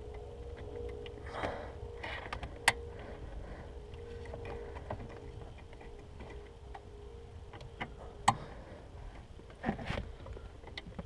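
Sharp plastic clicks and small knocks of hands and a tool working at the tabs of a Volvo V70's brake light switch under the dashboard, two of them loud, over a steady faint hum.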